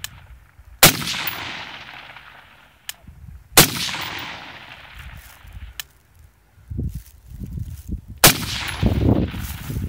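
AR-15 rifle firing three single shots a few seconds apart, each with a long echo rolling away across open ground. A faint tick comes about two seconds after each of the first two shots, and a low rumble rises near the end.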